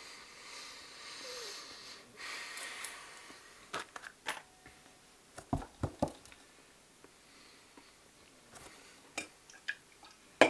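Soft chewing and sniffing of someone working through chewy fatty food, with a few scattered light clicks and knocks.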